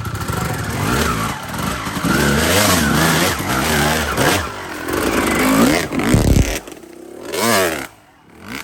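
Motorcycle engine revving up and down again and again, its pitch rising and falling. The revs drop away about six and a half seconds in, and one more short rev follows near the end.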